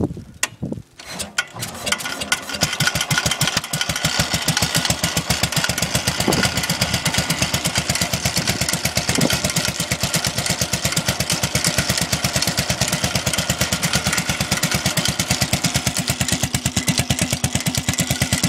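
The 12 hp Tecumseh engine on a 1974 Sears Suburban ST16 garden tractor cold starting after two weeks of sitting. It catches within the first couple of seconds, then runs steadily with an even, rapid firing beat.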